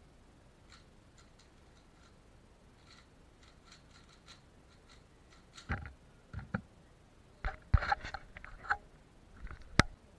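Valk 3 Power M magnetic 3x3 speedcube being turned fast, a faint run of small layer-turn clicks. About six seconds in the solve ends with a thump as the timer is stopped, followed by several louder knocks and handling bumps.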